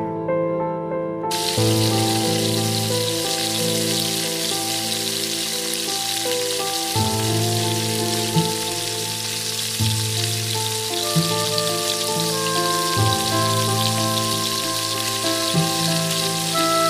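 Chopped onion sizzling and crackling in hot oil in a small aluminium pot, the sizzle starting abruptly about a second in as the onion goes into the oil, over gentle background music.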